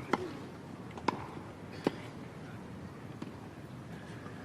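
Tennis ball being hit: three sharp pocks in the first two seconds, roughly a second apart, and a fainter fourth a little past three seconds, over a steady background hiss.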